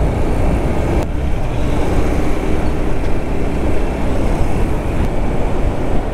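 Motorcycle riding at speed in traffic: wind rumbling on the microphone over the bike's steady engine note.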